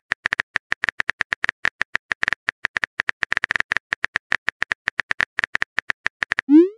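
Texting-app keyboard typing sound effect: rapid, even clicks, several a second. Near the end the clicks stop and a short rising swoop plays as the message is sent.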